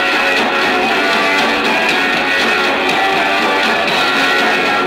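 Punk rock band playing live mid-song, led by strummed guitar, loud and steady.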